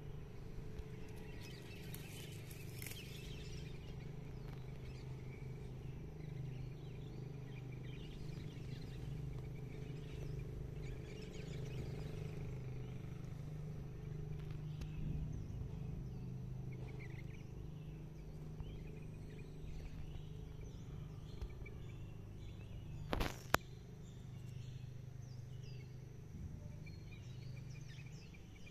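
Wild birds chirping and calling now and then over a steady low hum, with a single sharp click about three-quarters of the way through.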